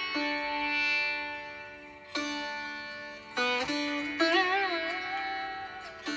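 Background music: a plucked string instrument playing slow notes that start sharply, ring out and fade, some bending and wavering in pitch.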